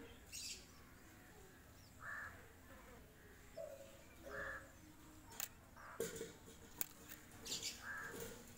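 Short harsh animal calls, three of them a couple of seconds apart with a lower call between, and a few sharp clicks about midway.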